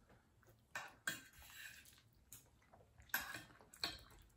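Metal forks clicking and scraping against dinner plates: a handful of faint, short taps spread over a few seconds.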